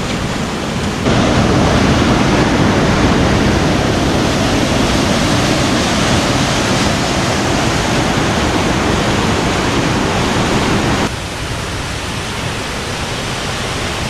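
River water rushing over rocks and boulders in small cascades, a loud, steady rush. It grows louder about a second in and drops back near the end.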